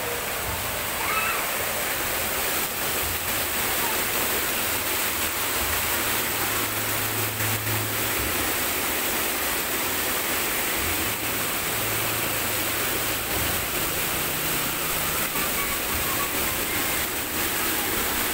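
Water rushing steadily as it spills over the concrete edge of a shallow pool.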